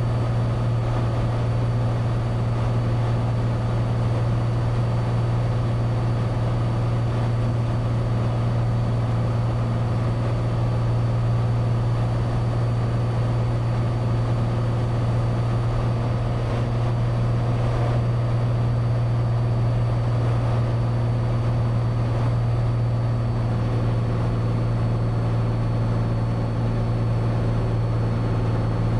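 Cessna 182's six-cylinder piston engine and propeller droning steadily in cruise, heard from inside the cabin, with an even low hum and no change in power.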